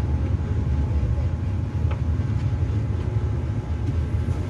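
A steady low rumble, with one faint click about two seconds in.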